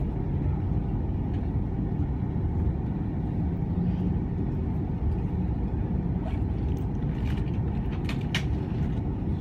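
Cabin noise of an Airbus A330-300 in descent: a steady low rumble of its Rolls-Royce Trent 772B engines and airflow over the fuselage, with a few faint clicks.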